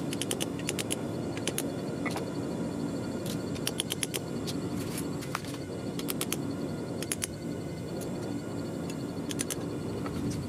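Clusters of quick, light, sharp hammer taps on the hot 5160 high-carbon steel knife tang held in the anvil's hardy hole, bending the tang over, over a steady outdoor background.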